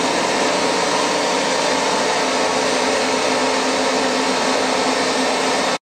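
Water-cooled 5.5 kW vacuum pump for a CNC router's vacuum bed running steadily: an even rush of air with a steady hum under it. It cuts off abruptly near the end.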